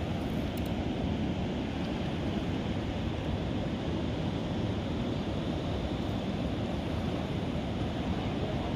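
Ocean surf breaking and washing, heard as a steady rushing noise with wind blowing on the microphone.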